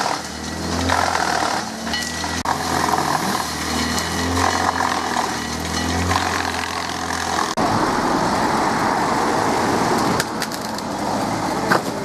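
Tree-clearing machinery running: a chainsaw and a wood chipper's engine give a steady low drone. About two-thirds of the way through, the sound changes abruptly to a rougher, noisier machine sound.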